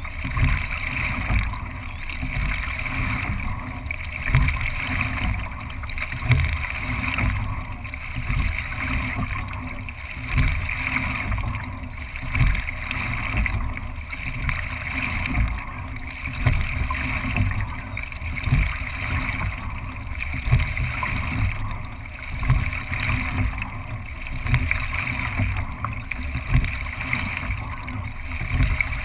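Single racing scull being rowed, heard from a camera on its deck: water rushing along the hull with a low rumble, and a surge with a knock about every two seconds as each stroke is taken, roughly thirty strokes a minute.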